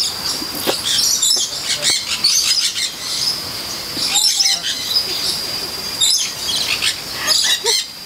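Birds chirping and calling in many short, quick calls throughout, over a thin, steady high-pitched tone.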